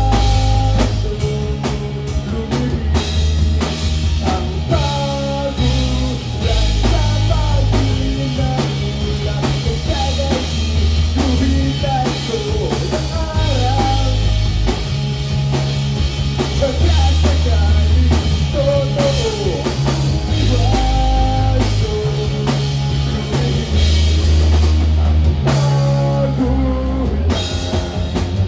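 Live rock band playing a song, with a drum kit, bass and guitar, loud and steady, and no lyrics picked up in this stretch.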